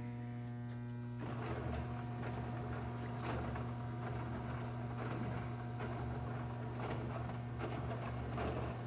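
Wardwell 64-carrier wire harness braiding machine starting up about a second in, its carriers running with a steady clatter of small clicks over an electrical hum.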